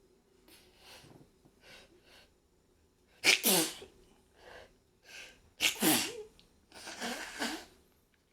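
A person sneezing twice, about two and a half seconds apart, each a loud voiced 'achoo' that falls in pitch, led in by several quick, breathy catching inhalations.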